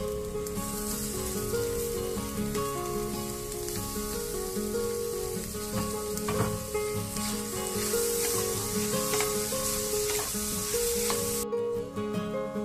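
Food sizzling as it fries in a hot pan, with a few stirring strokes partway through; the sizzle cuts off suddenly near the end. Light background music plays over it.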